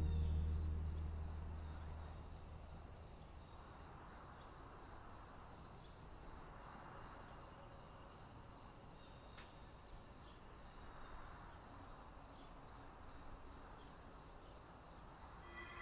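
Crickets chirping steadily: a continuous high trill with a regular pulsing chirp beneath it. Soft ambient music fades out over the first couple of seconds.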